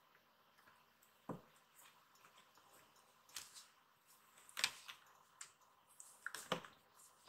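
Kittens' claws and paws scraping and tapping on a corrugated cardboard scratcher as they play-fight: scattered soft scratches and light knocks, the loudest a little past halfway.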